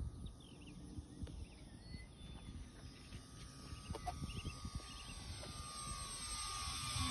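Electric motor and propeller of an E-flite Cirrus SR22 RC model plane whining steadily, growing louder as it flies in toward the listener. Small birds chirp in the first few seconds.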